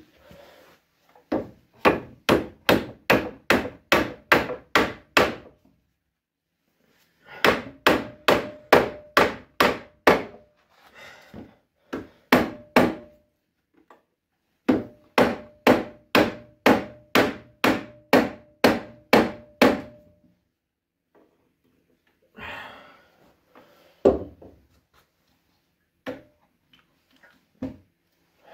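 Rubber mallet knocking on a clamped solid-wood chair leg during its repair, in three long runs of quick even blows about three a second, a short run between them and a few single knocks near the end. A faint ring carries under the later runs.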